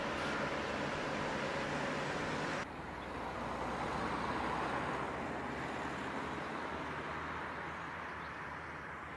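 Heavy-haulage convoy with its escort vehicles on the road: steady engine and road noise. The noise drops suddenly and changes character about two and a half seconds in.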